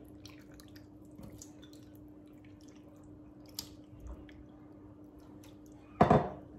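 Wooden spoon stirring raw cubed chicken breast in a stainless-steel pot: soft, wet squishing and light scraping over a steady low hum, with one louder thump near the end.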